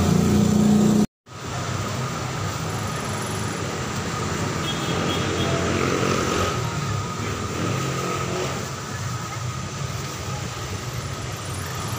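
Steady background din of a busy market with what sounds like street traffic. A loud low drone in the first second cuts off abruptly in a brief dropout of silence.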